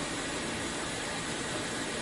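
Dishwasher running mid-cycle: a steady rushing noise of water spraying inside the tub.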